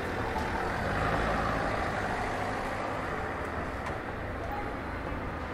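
City street traffic: the steady rumble of motor vehicles running on the road close by, with an even wash of engine and tyre noise and no sudden sounds.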